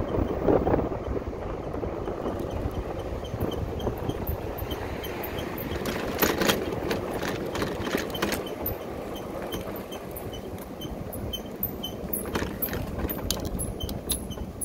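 Wind rushing over the microphone and tyre noise from an electric motorcycle riding along a city street, with no engine note. A few sharp knocks come about halfway through and again near the end as the bike runs over rough, patched pavement.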